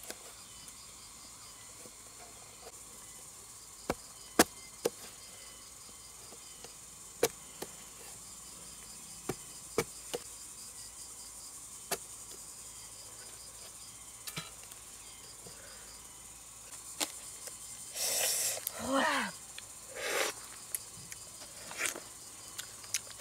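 A knife blade knocks and cuts into a watermelon's rind in a dozen or so sharp separate clicks, over a steady chirring of insects. Near the end come louder, wet bites and chewing of the watermelon flesh.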